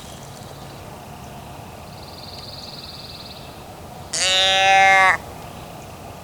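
A hunting call blown close by: one loud, nasal, caw-like note about a second long, about four seconds in.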